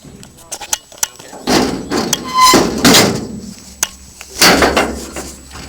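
A series of loud, heavy bangs and knocks, four of them strongest, one with a brief ringing tone.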